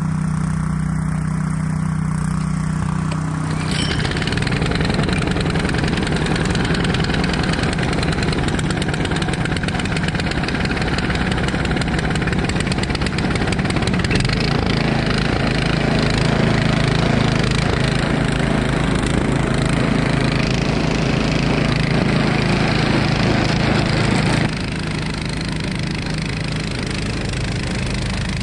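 Toro Power Max 252cc two-stage snowblower engine running steadily. A few seconds in, a louder rushing hiss joins it as the augers and impeller churn and throw wet, heavy snow, then drops back near the end, leaving the engine on its own.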